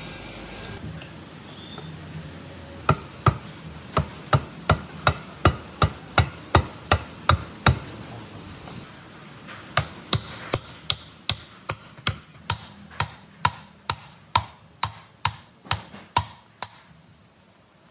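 Hammer tapping a two-groove V-belt pulley onto an electric motor's shaft: two runs of quick, sharp blows, about three a second, with a short pause between them.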